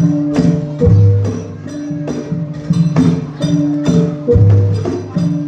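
Javanese gamelan music for a Jathilan horse dance: struck bronze keyed instruments ring out sustained notes over a steady beat of about two strokes a second. A deep low note comes in about a second in and again near the end.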